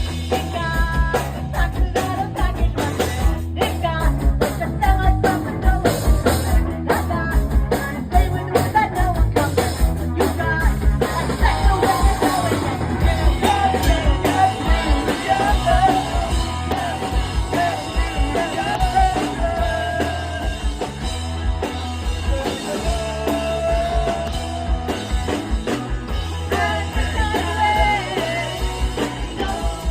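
Live pop-punk band playing a song: drum kit, bass and electric guitars, with a wavering melodic line on top.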